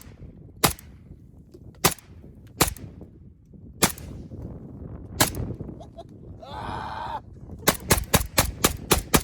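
AK-47 rifle fired semi-automatic: five single shots about a second apart, then a rapid string of about eight shots near the end.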